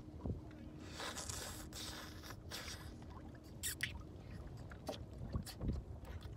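Wind and sea water around a small rowboat at sea, with a hissing gust about a second in and a few sharp knocks in the second half.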